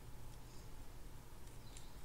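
A few faint scratches and clicks of a small brush dabbing grease onto a Daiwa RG1350 spinning reel's main gear, over a low steady hum.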